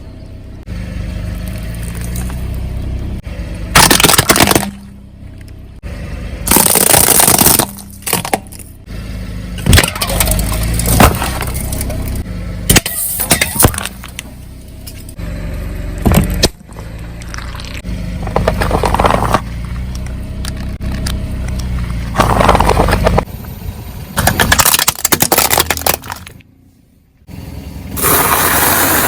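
A car's tyre rolling over and crushing objects: a series of sudden, loud cracking and crunching bursts a few seconds apart, over the low rumble of the car.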